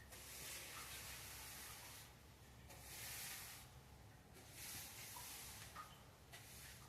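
Faint broom strokes: several soft, hissy swishes a second or so long, spread a little apart.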